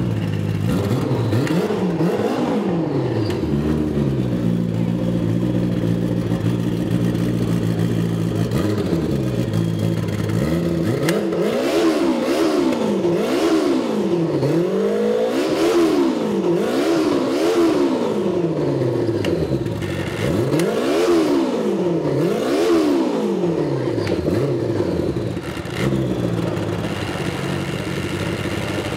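Snowmobile engine running in place: a steady idle with one or two revs at first, then a string of quick throttle blips, each rising and falling, about one a second for over ten seconds, before it settles back to idle near the end.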